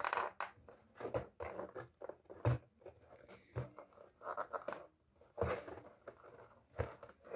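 Hands handling a cardboard ring-light box: fingers scraping and tapping over the box in irregular clicks and rubs, with a couple of soft knocks a few seconds in.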